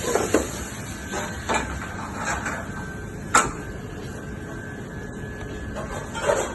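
A handful of short, sharp knocks and clatters, the loudest about three and a half seconds in, over a steady hiss with a faint steady whine.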